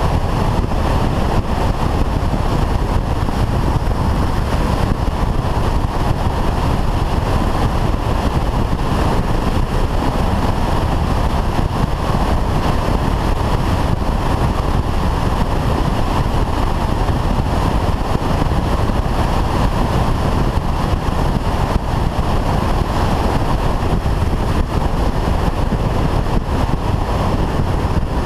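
Steady rush of wind and road noise on a helmet-mounted camera's microphone while riding a Honda Varadero motorcycle at a constant cruising speed, with the engine's drone underneath.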